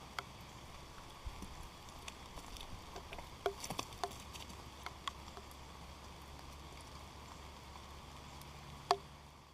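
Rain pattering, with scattered sharp drops ticking close by, several around the middle and the loudest near the end.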